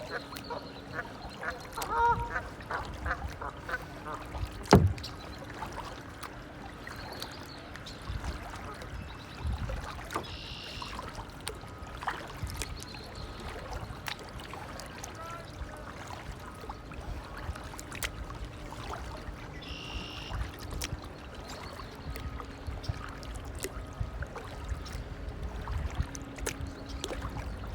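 Waterfowl calling, with a quick run of quacking calls about two seconds in, over low rumbling noise. There are scattered knocks, and one sharp loud knock about five seconds in.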